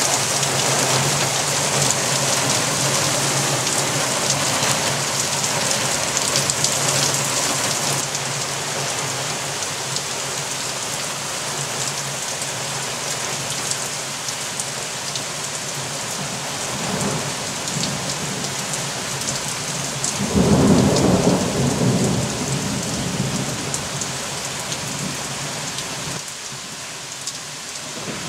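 Thunderstorm with heavy rain falling steadily. A faint rumble of thunder comes about two-thirds of the way through, then a louder roll of thunder a few seconds later.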